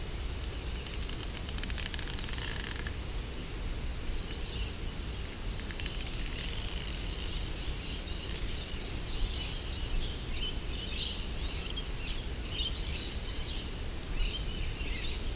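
Small birds chirping over steady outdoor background noise, with a brief rustling tear about two seconds in as the spine is split out of a cabbage tree palm leaf.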